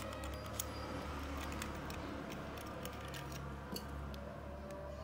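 Small metallic clicks and ticks, scattered and irregular, from a screwdriver and small screws being handled on a soldering gun's tip mount, over a steady low hum.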